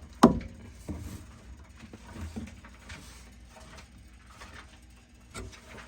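A sharp knock, then a few lighter knocks and rustles of objects being handled and moved, over a faint low hum.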